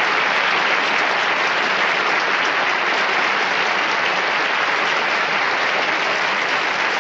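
Studio audience applauding, sustained and steady.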